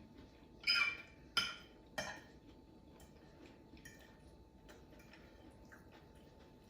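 Utensils clinking against a dish, three sharp clinks in the first two seconds, then only faint small ticks.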